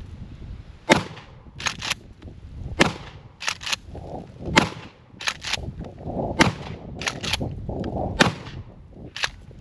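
Remington 870 Tactical pump-action shotgun fired five times in quick succession with low-brass shells. Between shots the pump is racked, giving a quick pair of sharp clacks each time.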